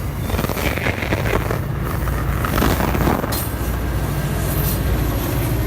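MBTA commuter train led by an HSP46 diesel-electric locomotive passing close by: steady engine drone with rail and wheel clatter and a few sharp knocks.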